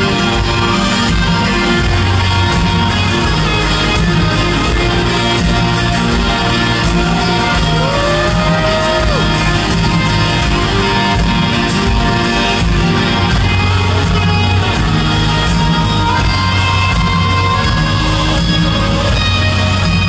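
Live rock band playing with electric and acoustic guitars, as heard from the audience in a large concert hall.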